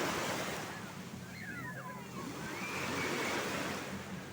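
Sea water washing and rushing, swelling at the start and again about three seconds in, over a steady low hum, with a few faint high squeaks.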